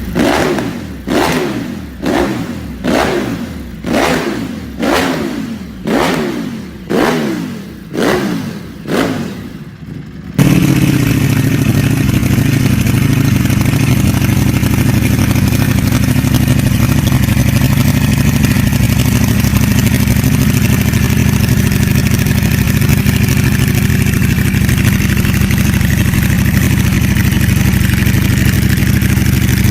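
Ducati Panigale V4's V4 engine through an aftermarket exhaust, blipped about nine times in quick succession, each rev falling straight back. About ten seconds in it cuts suddenly to a steady, loud engine note that holds to the end.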